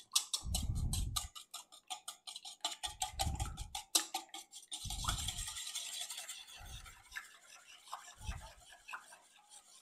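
Wire whisk beating eggs and milk in a stainless steel bowl: rapid ticking of the tines against the metal, turning to a softer swishing about five seconds in and fading toward the end. A dull low thump comes every second or two.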